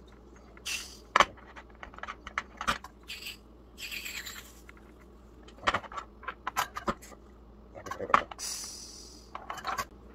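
Clicks, taps and scrapes of metal as the brass hose fitting of a portable mini gas stove is screwed onto a gas canister and the stove's metal pot supports are handled, with several short hisses.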